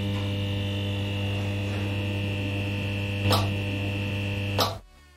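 Logo sound effect: a steady electric buzzing hum at one pitch with a higher tone over it and two short crackles, about three and four and a half seconds in, before it drops away near the end.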